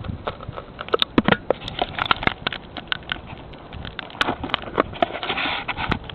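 Rapid, irregular clicks, knocks and scraping right at a Ring video doorbell's microphone as the doorbell is handled and worked loose, with a brief rustle about five seconds in.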